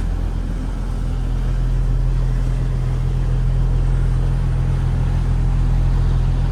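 Steady low drone of a cruise boat's engine running while the boat is under way, even in level throughout.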